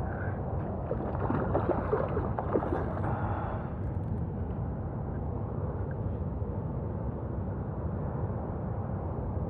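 Steady rush of water at a spillway, with a few faint splashes about one to three seconds in as a hooked bowfin thrashes at the surface.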